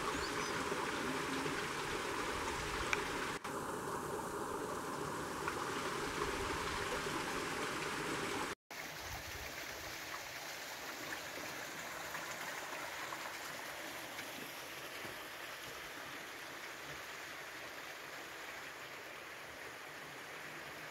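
Running water of a mountain stream, a steady rush without pauses. There is a brief break about eight and a half seconds in, after which it carries on a little quieter.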